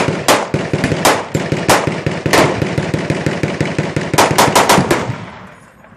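Automatic gunfire from machine guns: a dense, rapid run of shots with louder reports standing out among them, including a quick string of loud shots near the end. The firing stops about five seconds in.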